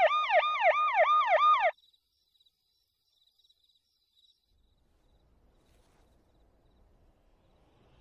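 Ambulance siren yelping, rising and falling in pitch about three times a second, then cutting off suddenly about two seconds in.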